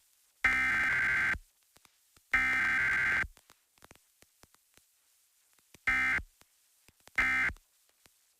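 Emergency Alert System SAME digital data bursts: harsh, buzzing two-tone modem squawks. There are two bursts of about a second each, then after a gap three shorter bursts about a second and a half apart.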